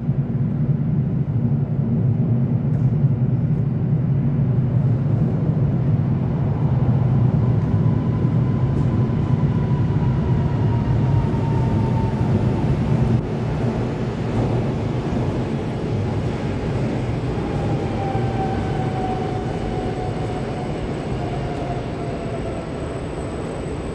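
Koleje Mazowieckie EN57AL electric multiple unit running into a platform: a heavy steady rumble of wheels on rails, with a faint whine that falls slowly in pitch as the train brakes. The rumble grows quieter about halfway through as the train slows toward a stop.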